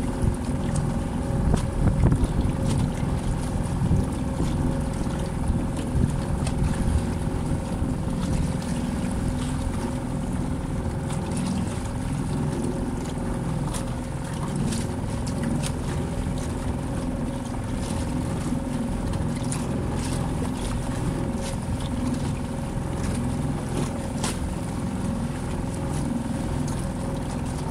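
Small outboard motor running steadily at a constant speed as the boat moves along, with wind on the microphone and water noise.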